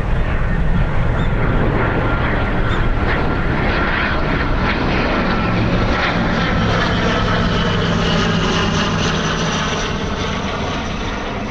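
Airliner passing low overhead on final approach, a loud, steady engine noise with a thin whine that fades near the end, with gusty wind on the microphone.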